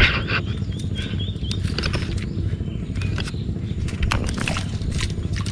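Water splashing and slapping inside a bamboo fish trap as fish stir in it, over a steady low motor hum. A bird chirps five or so short notes about a second in.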